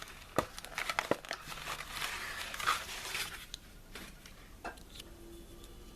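Plastic blister packaging being handled and pulled apart: crinkling and rustling with a few sharp clicks.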